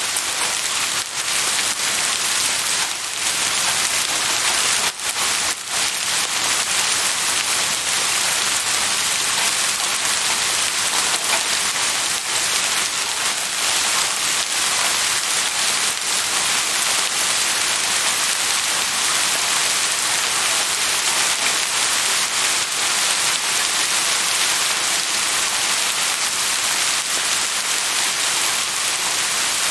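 Steady rain falling, a dense even hiss with a few sharper drop hits in the first several seconds.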